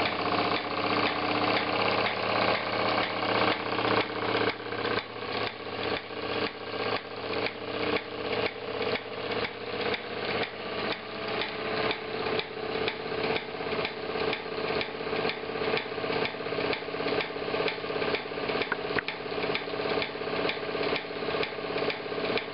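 Wilesco D16 toy steam engine driving a table of model workshop machines by belts and line shafts: a steady mechanical clatter with a regular knock about three times a second.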